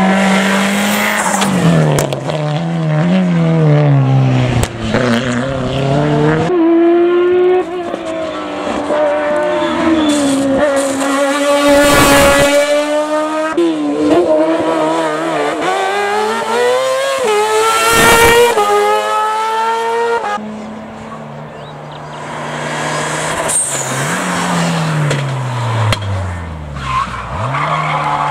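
Rally cars' engines revving hard up a hillclimb, pitch repeatedly climbing and dropping through gear changes and braking, with a Volkswagen Golf rally car at the start. Two sharp cracks stand out in the middle, the sound falls away for a moment about three quarters through, then another car comes up revving.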